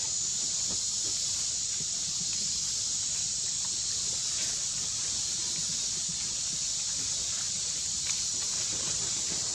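Steady high-pitched drone of insects such as cicadas, with faint rustles of dry leaves.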